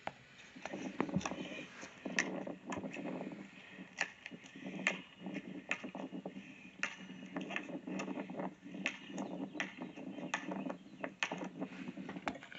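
Outdoor video playing back through a tablet's speaker: horrible wind noise rumbling on the recording's microphone, with scattered sharp crackles and knocks.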